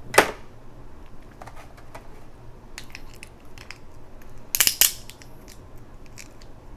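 Crab shell cracking as it is broken open by hand: a sharp crack just after the start, then two cracks in quick succession about two-thirds of the way through, with smaller clicks of shell between.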